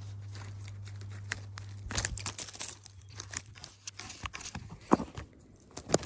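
A fox's footsteps crunching and rustling in dry bedding right next to the microphone, with irregular sharp knocks and scrapes as it noses at the phone. A low steady hum dies away about two seconds in.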